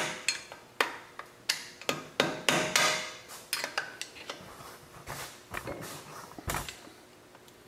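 About a dozen sharp metal taps at an uneven pace, some with a brief ring: a hand tool bending the lock washer tabs over against the wheel-bearing lock nuts on a Toyota Land Cruiser 100 series front hub, to lock the nuts in place.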